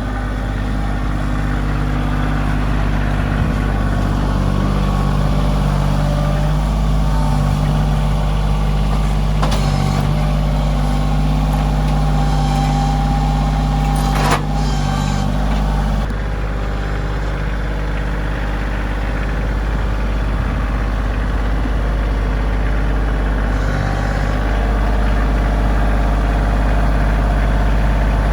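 An engine running steadily, with a sharp knock about 14 seconds in and a change in its note about two seconds later.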